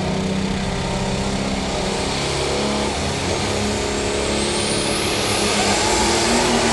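Diesel engine of an International Harvester 1066 pulling tractor running hard at high revs, loud and steady, growing a little louder toward the end. A faint high whine rises about four to five seconds in.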